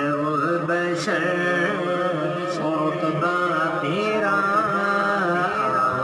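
Islamic vocal background music: a single male voice chanting a slow melody with wavering, ornamented pitch.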